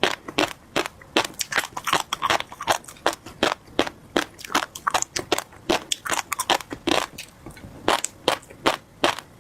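Close-miked chewing of a mouthful of tobiko (flying fish roe), the little eggs popping and crunching in a quick run of sharp crackles, about three or four a second.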